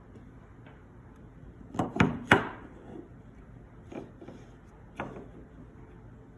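Wooden toy railway bridge being handled: a few light wooden knocks and clacks, three close together about two seconds in, the last of them the loudest, then single softer knocks around four and five seconds.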